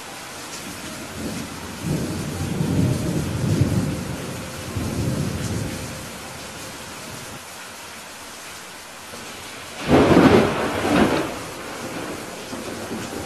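Steady rain with a low rolling rumble of thunder from about two to six seconds in. About ten seconds in comes a louder, sharper thunderclap, with a second crack a second later.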